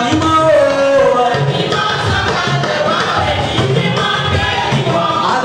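A congregation singing a lively praise song together over drums and hand percussion with a steady beat.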